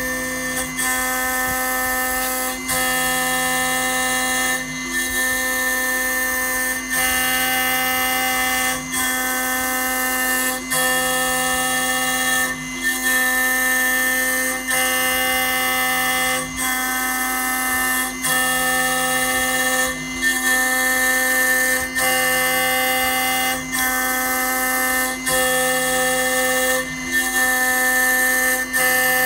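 Small CNC milling machine milling down an iPhone's A10 chip: a steady spindle whine with motor tones that dip briefly and shift in pitch about every two seconds as the table changes direction.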